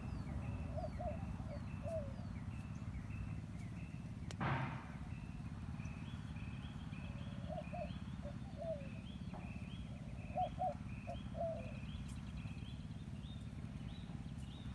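Birds chirping: short calls repeated in small groups, some lower and some higher, over a steady low hum. One sharp click about four seconds in.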